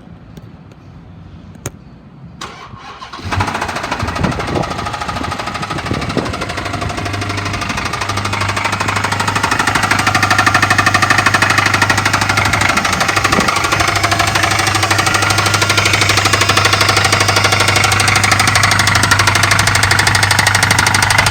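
A 2011 Dodge Charger R/T's 5.7-litre Hemi V8 starts about three seconds in, after a couple of clicks. It then runs with a loud, rapid knock, growing louder until about ten seconds in. The knock is the sign of a bad motor.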